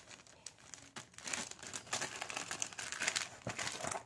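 Packaging crinkling and rustling as it is handled, a dense run of small crackles that grows busier and louder from about a second in.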